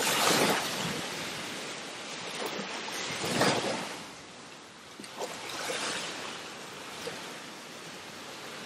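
Ocean surf: waves breaking and washing on the beach, the rushing noise swelling about three times.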